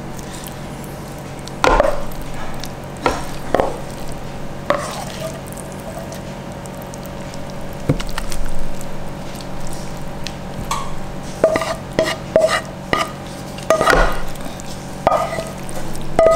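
Irregular clinks and scrapes of a utensil against a dish, sparse at first and coming more often in the last few seconds, over a steady low hum.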